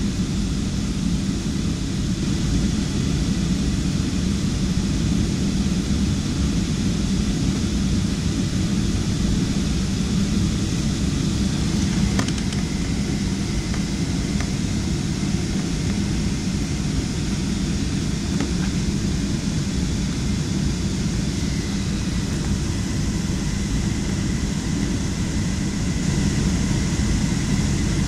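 Steady cabin noise inside a Boeing 737 airliner: an even drone of the jet engines and airflow, strongest in the low range with a hiss over it.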